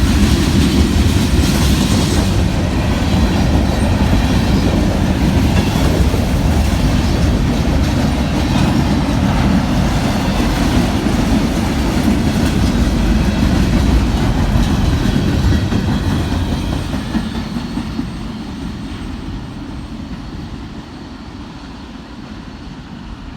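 Union Pacific mixed freight train's cars rolling past at speed, wheels clattering over the rails. The sound fades away over the last several seconds.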